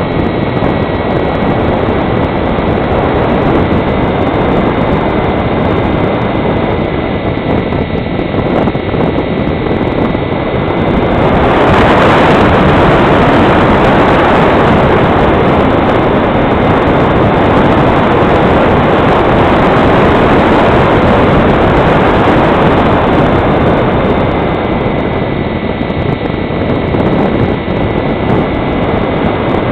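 Electric motor and propeller of a model glider running with a steady whine, heard from on board the aircraft. About eleven seconds in the motor whine stops and a louder rush of air over the airframe takes over, and the whine comes back about twenty-four seconds in.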